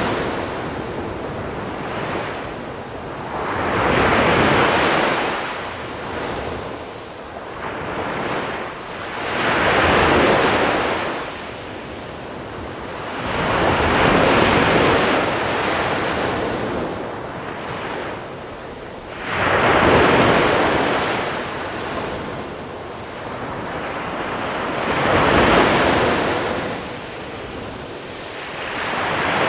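Sea waves breaking and washing over a small-pebble beach, each wave swelling up and fading away about every five to six seconds.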